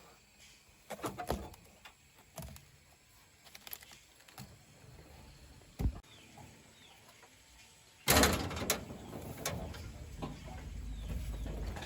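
Scattered knocks and clicks, then from about eight seconds in a louder, noisy stretch of clattering and scraping.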